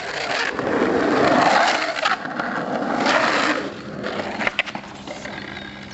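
Skateboard wheels rolling over asphalt, a loud rushing roll through the first three and a half seconds that then fades, with a couple of short clicks from the board about four and a half seconds in.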